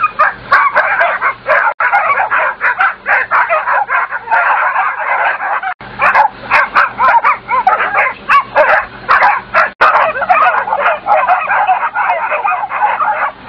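A pack of German Shorthaired Pointers barking and yelping all at once as they set upon their quarry, a dense, unbroken chorus of overlapping calls.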